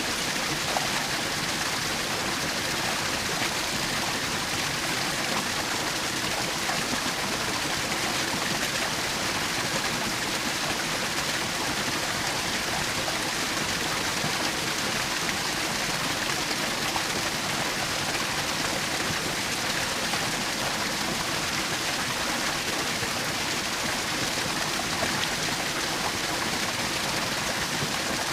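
Small waterfall: water splashing and rushing in a steady, even hiss.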